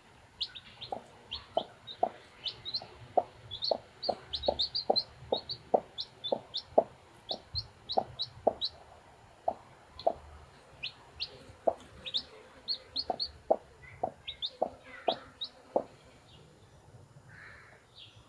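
Brahma hen clucking steadily in short clucks about twice a second, with newly hatched chicks peeping high and fast over it. Both stop near the end.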